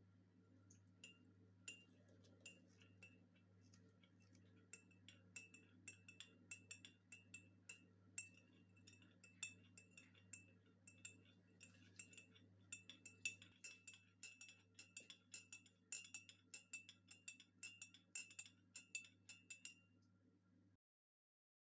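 A spoon stirring in a glass, clinking against its sides with a short ringing tone each time: a few scattered clinks at first, then quicker and more regular, about two to three a second, until they stop near the end.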